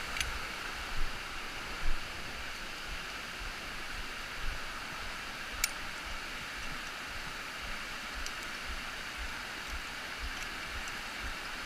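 Steady rush of a waterfall's falling water. A couple of low bumps come about a second and two seconds in, with a single sharp click about halfway through.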